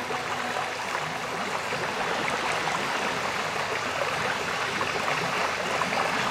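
A steady rushing noise like running water, with no tones or beat in it.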